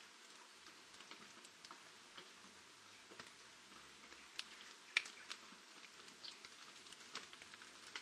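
Light rain falling on garden leaves and branches: a faint hiss with scattered drip ticks, and one sharper tick about five seconds in.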